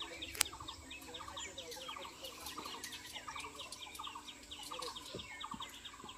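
Several birds chirping together, with quick runs of short repeated notes. There is one sharp click about half a second in.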